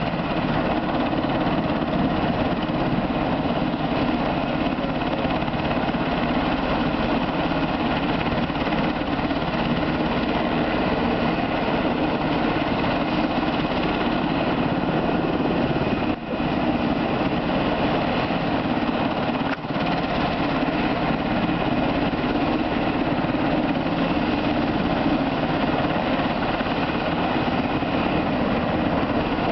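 UH-60 Black Hawk helicopter running on the ground, its turbines and turning rotor making a loud, steady drone. The sound dips for an instant twice, a little past the middle.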